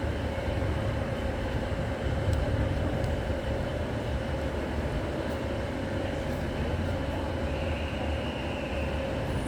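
Passenger train running at the station: a steady low rumble with a steady whine over it.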